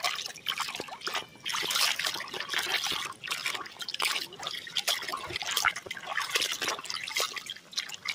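Soapy water splashing and sloshing in a plastic tub as a toy dinosaur is scrubbed by hand, in uneven spurts with dripping.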